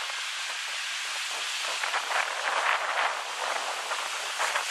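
Small waves breaking and washing up onto a sandy beach: a steady hiss of surf that swells louder about halfway through as a wave breaks and runs up the sand.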